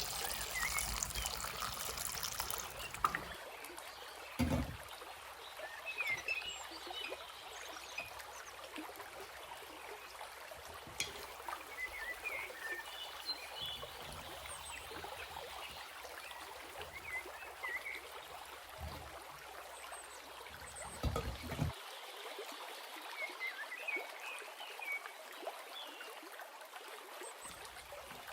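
Water trickling steadily, with scattered short high chirps and a couple of low thumps.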